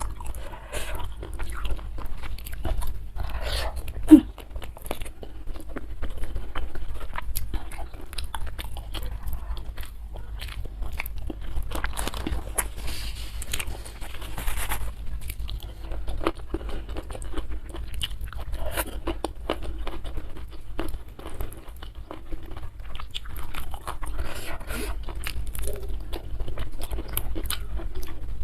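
Close-miked chewing and biting of crunchy fried catfish, with irregular crunches and mouth sounds. One sharp, much louder crack or knock about four seconds in.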